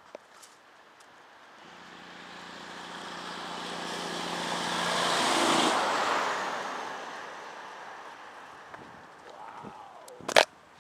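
A car passing close by on an asphalt road: engine and tyre noise swell to a peak about five and a half seconds in, then fade as it drives off. A brief loud knock near the end.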